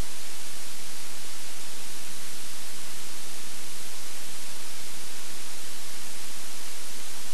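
Steady, unchanging hiss with a faint hum under it, static-like noise with no distinct sound events.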